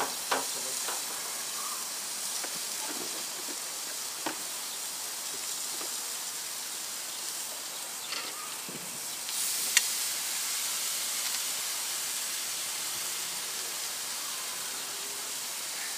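Steaks, burger patties and chicken sizzling on a grill, a steady hiss, with a few sharp clicks of metal tongs against the grate.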